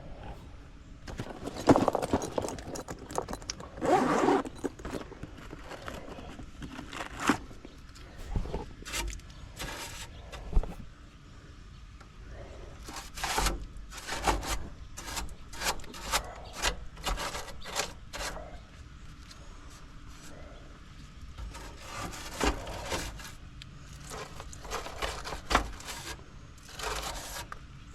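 Hands working on equipment: intermittent scraping and rubbing with many short clicks and knocks scattered throughout, a few of them sharper.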